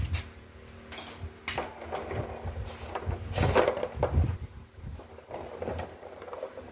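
Irregular knocks, clicks and rustles of tools and parts being handled during car engine work, the loudest a scraping rustle about three and a half seconds in.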